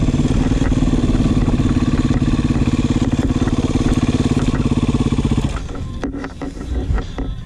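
Beta 500 RR dirt bike's single-cylinder four-stroke engine running at a steady pace with an even pulsing beat. About five and a half seconds in, the engine sound drops away suddenly and a quieter, broken sound is left.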